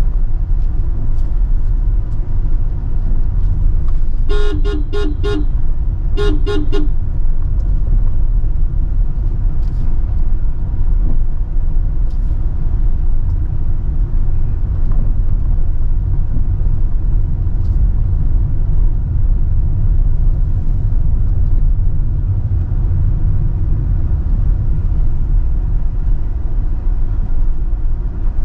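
Car driving on a rough unpaved road, a steady low rumble of engine and tyres. A two-note car horn toots in two quick runs of short beeps, about four and six seconds in.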